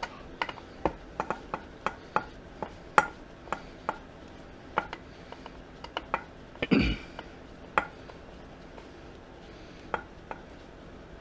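Light metallic clicks and taps of small parts and a screwdriver working on an aluminium motorcycle crankcase half while a bearing keeper is fitted. There is one heavier knock about seven seconds in.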